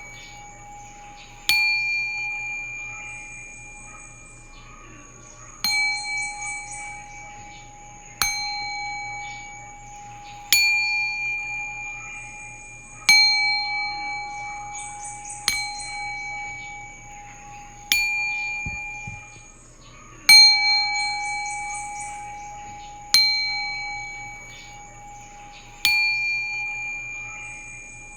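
A singing bowl struck about every two and a half seconds, ten times in all. Each strike rings out and slowly fades, sounding the same bright pitch with higher overtones. A few times a brief, high shimmering jingle sounds over the ringing.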